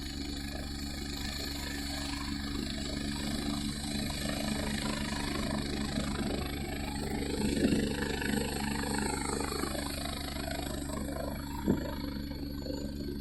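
Helicopter running steadily, a low drone of engine and rotor with a steady high whine over it; a single short knock near the end.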